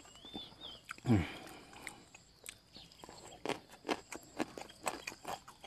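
Close-up mouth sounds of a man chewing a mouthful of minced fish laab: wet smacking and crisp clicks, several a second, from about three seconds in. About a second in there is a single loud falling sound, just after a short high squeak.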